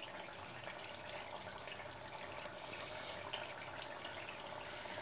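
A spatula stirring thick soya chunk and potato curry in a kadai, a faint, steady wet sloshing of the gravy as it simmers on a low flame.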